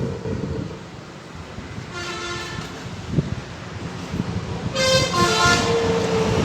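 Vehicle horns tooting in passing street traffic: a short toot about two seconds in and a louder, longer two-part honk near the end, with a single sharp knock in between.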